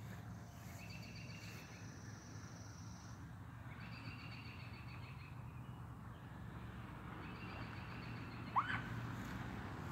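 A bird singing a short buzzy trill, about a second long and repeated every three seconds or so, with a single sharp chirp near the end, over a steady low outdoor rumble.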